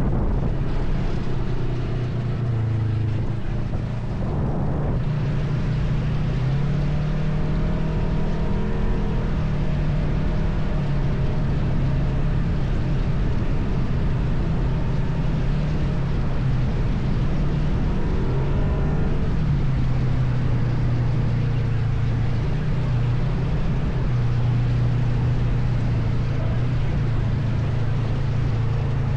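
ATV engine running under way, its note rising and falling several times as the throttle changes, with wind noise over it.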